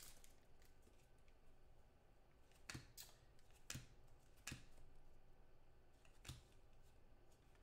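Near silence broken by a handful of faint, scattered clicks as a stack of trading cards is handled and flipped through in the hand.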